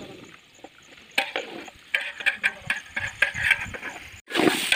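Metal spoon clinking and scraping against an aluminium cooking pot as vegetables are stirred, making irregular sharp clicks and knocks that start about a second in.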